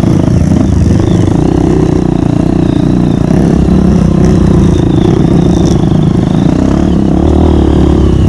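Dirt bike engine running steadily under load while riding a trail.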